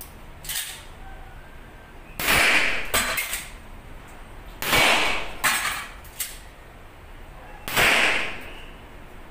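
.45-calibre pistol firing three loud shots about two and a half seconds apart, each ringing out briefly. Fainter sharp cracks fall between the shots.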